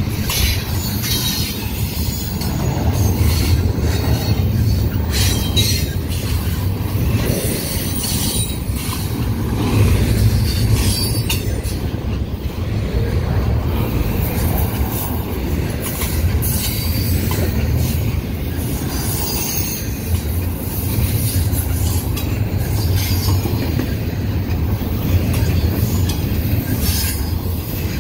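Double-stack intermodal freight train's container well cars rolling past close by: a steady low rumble of steel wheels on the rails, broken by irregular sharp high clicks.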